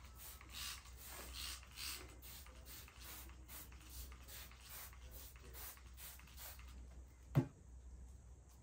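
Faint rustling and scratching of hands working soil and peat moss: a string of soft scrapes, with one sharp knock about seven seconds in.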